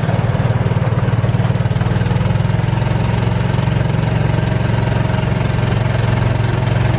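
Golf cart's small engine running steadily as the cart drives along a road: a low drone with a fast, even pulse.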